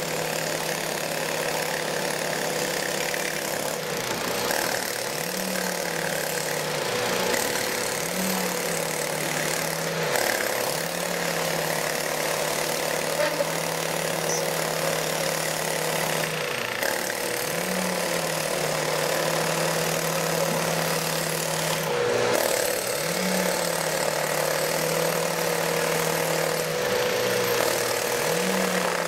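Doosan crawler excavator's diesel engine running steadily, its pitch rising briefly every few seconds as the engine takes hydraulic load while digging and dumping soil into a truck, over a steady hum and a wash of background noise.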